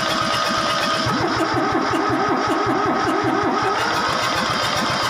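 Kubota D950 three-cylinder diesel being cranked on its electric starter: a steady whine whose pitch wavers up and down about three to four times a second as the engine turns through its compression strokes.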